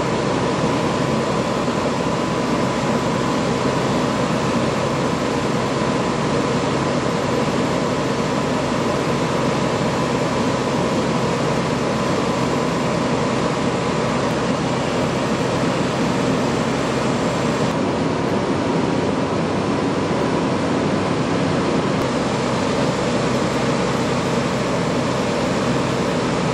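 Fire engine running steadily: a constant mechanical drone with a faint high hum.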